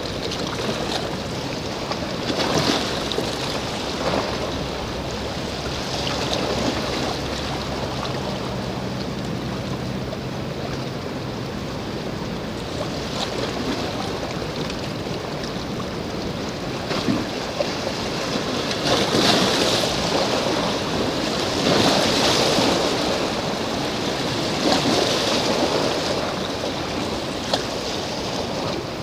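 Sea waves washing against the shore, swelling and falling every few seconds, louder for a stretch in the second half.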